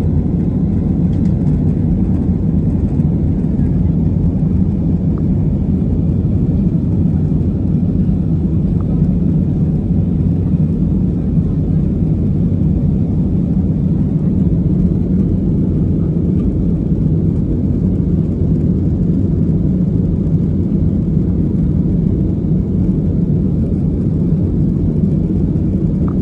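Steady low cabin noise of an Airbus A320neo in flight, heard at a window seat over the wing: engine and airflow rumble at an even level.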